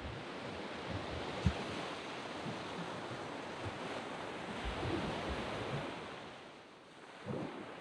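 Surf breaking and washing up on a sand beach, a steady rush that swells in the middle and eases off near the end. Low bumps of wind on the microphone come and go.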